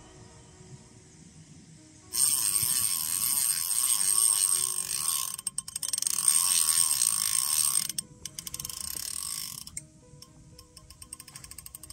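Carp reel's drag ratcheting loudly as a hooked carp pulls line off the spool, starting suddenly about two seconds in and running for several seconds with a short stutter of rapid clicks in the middle. After it eases off, a quieter run of evenly spaced clicks follows near the end.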